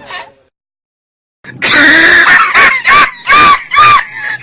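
A man's loud, high-pitched laughing fit, starting about a second and a half in after a short silence and going in squealing pulses about two or three a second, so loud it distorts.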